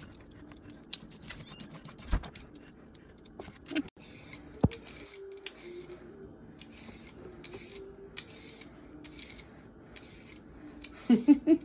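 Vegetable peeler scraping down a raw carrot in repeated strokes, about one every two-thirds of a second, from about four seconds in.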